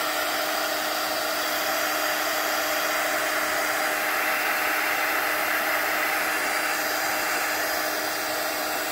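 Craft heat gun blowing steadily, a constant rush of air with a steady hum under it, as it dries wet paint and coffee dye on paper.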